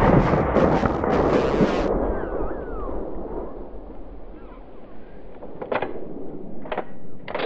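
A rifle shot's rolling echo dies away over several seconds, with music under the first two seconds. Faint bird chirps and three sharp clicks come near the end.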